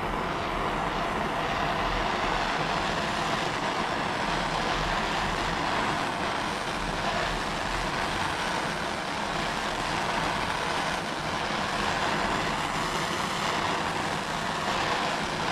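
Propane torch burning with a steady, even rush of flame, heating an air-pressurized two-stroke expansion chamber to push its dents out.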